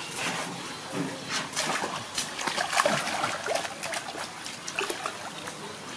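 Water splashing and sloshing in a round concrete water tank as a baby monkey swims in it, in quick irregular splashes that are loudest about three seconds in.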